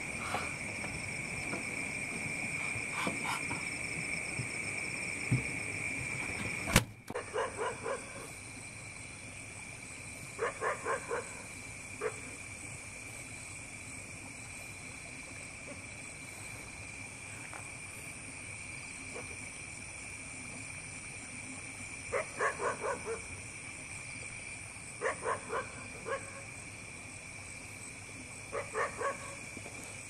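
An animal gives short runs of three to five quick calls, five or six times, over a steady high-pitched drone of night insects. A sharp click comes about seven seconds in, after which the drone is quieter.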